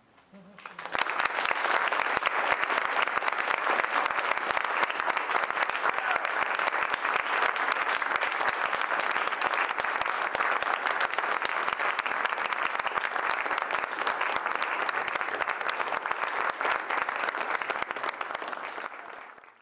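Audience applauding: dense clapping that swells in about a second after the music ends, stays steady, then thins out and stops near the end.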